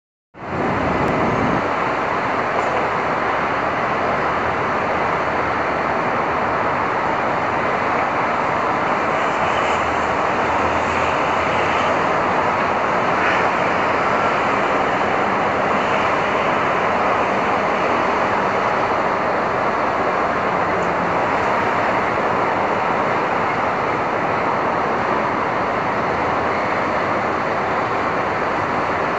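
City street ambience on a stormy day: a steady wash of traffic and rain noise that comes in within the first half second and then holds even.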